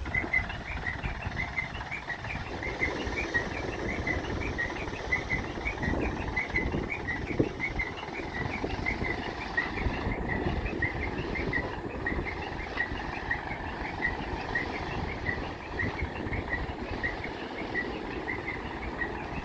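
A bird chirping over and over, short high notes about two or three a second, over steady outdoor rumbling noise.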